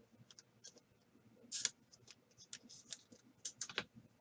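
Trading cards being handled and slid against each other: light, scattered clicks and rustles of card stock, with a louder swish about one and a half seconds in and a quick cluster of them near the end.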